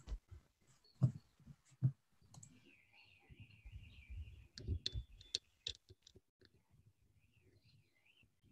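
Faint computer mouse clicks and soft knocks, scattered irregularly over the first six seconds, then near silence.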